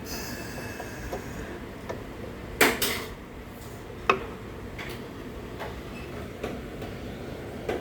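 A few sharp knocks and clatters over a steady background noise, the loudest two close together about a third of the way in and another about half way.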